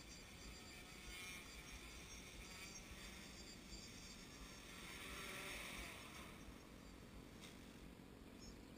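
Faint, steady multi-tone buzz of the tricopter's three Sunnysky 2212 1400kv brushless motors spinning Gemfan propellers, swelling briefly about five seconds in.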